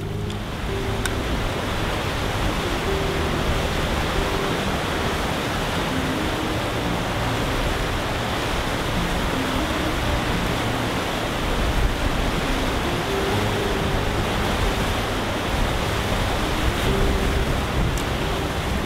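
Steady, even rushing of fast water, like a river or waterfall, with faint background music underneath.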